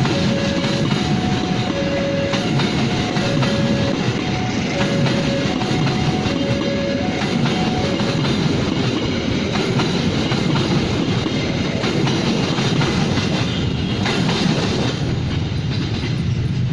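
Passenger train of the Gaya Baru Malam Selatan passing close by, a loud steady rumble with wheels clattering over the rail joints. For the first half, a two-note warning tone alternates about twice a second, then stops.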